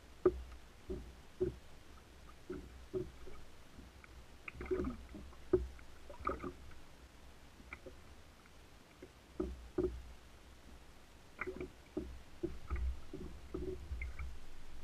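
Small waves lapping and slapping against the plastic hull of a Hobie Revolution 16 kayak, in short irregular knocks about two a second.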